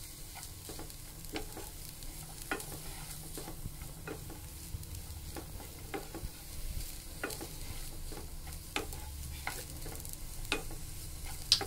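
Wooden spatula stirring and scraping a vegetable and chicken stir-fry in a non-stick kadai, over a light frying sizzle. Irregular soft scrapes and taps, with a sharper tap near the end.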